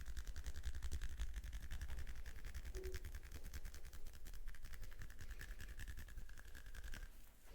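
Hands working rapidly on a person's head and scalp during a head massage: a fast, even patter of strokes that stops near the end.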